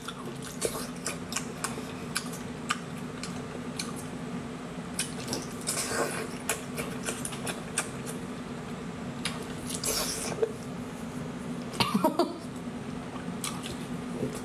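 Wet chewing, smacking and slurping of whole octopus tentacles coated in chili oil, a run of short sticky clicks, loudest about twelve seconds in. A steady low hum sits underneath.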